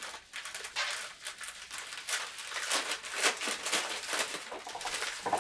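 Rustling and crinkling of packaging being handled as a gift box is unpacked, in short irregular bursts.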